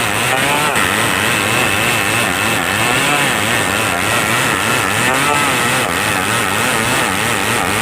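Stihl 070 two-stroke chainsaw running steadily at high revs, its pitch wavering up and down throughout.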